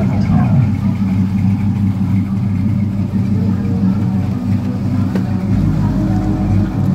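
A GM 5.3-litre V8, swapped into a four-door Cutlass, idling steadily.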